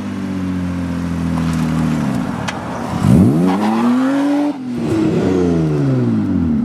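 Ford Probe GT exhausts as the cars accelerate hard past. The engine note climbs steeply about three seconds in, breaks off briefly at a gear change, then falls in pitch as the cars pull away.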